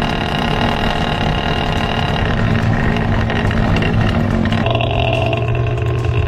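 Restored 1970s Honda motorcycle engine running steadily, its note shifting about four and a half seconds in.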